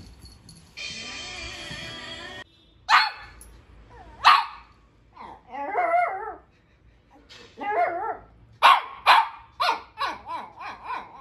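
Shih Tzu puppy barking up at a rope toy out of reach: a couple of sharp high barks, two wavering whiny calls, then a quick run of barks near the end.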